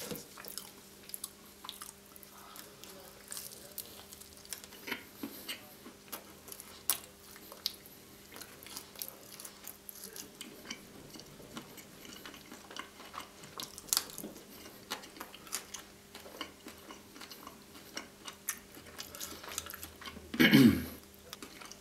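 Close-miked chewing of a thin-crust Nutella dessert pizza with strawberries and marshmallow: irregular small wet clicks and mouth smacks. Near the end comes one short, louder vocal sound falling in pitch, over a faint steady electrical hum.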